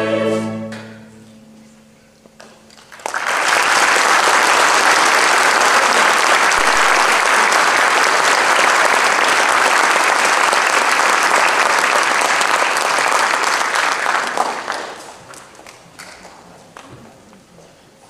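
The final held chord of an orchestra and choir rings out and dies away, and after a brief hush the audience breaks into applause. The clapping starts suddenly, runs steadily for about eleven seconds, then fades away, leaving only faint scattered knocks.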